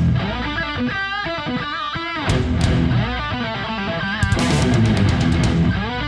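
Rock music led by electric guitar, its notes bending and wavering over a heavy bass.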